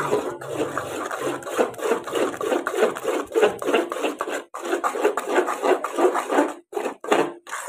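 Metal spoon stirring thick cooked semolina-and-jaggery payasa and scraping against a metal pot, in quick rhythmic rasping strokes with a few short breaks near the end.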